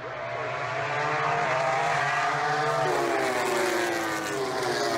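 Racing motorcycle engines at high revs as bikes pass by, fading in over the first second, with the pitch falling as one goes past about three seconds in. A steady low hum runs underneath.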